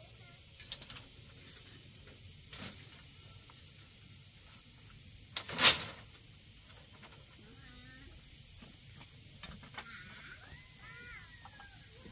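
Steady high-pitched insect chorus, crickets or cicadas, with a few sharp knocks, the loudest about halfway through. Some soft short calls come near the end.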